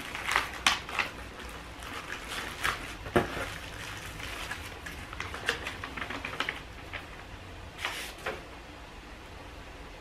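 Plastic packaging bag crinkling and paper rustling as a small item is unwrapped by hand, with irregular crackles, a few sharper ones near the start, about three seconds in and about eight seconds in.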